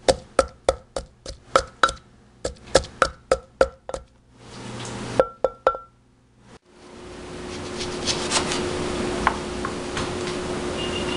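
Pestle pounding red chili in a stone mortar: sharp knocks about three a second, each with a short ringing. The pounding stops about four seconds in, with two or three last knocks near six seconds. After that comes a steady hiss with a low hum and a few faint clicks.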